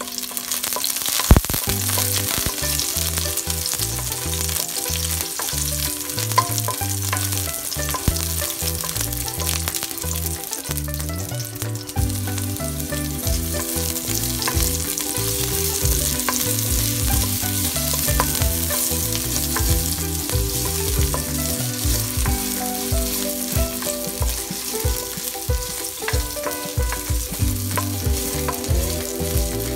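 Garlic and ginger sizzling in hot oil in a stainless steel pan, being sautéed and stirred with a wooden spoon that clicks against the metal now and then.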